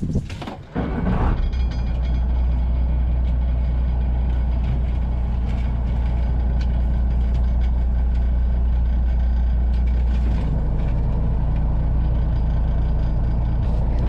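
Fishing boat's engine-driven hydraulics switched on: a loud, steady, low hum starts suddenly about a second in and runs on, its tone shifting slightly about ten seconds in.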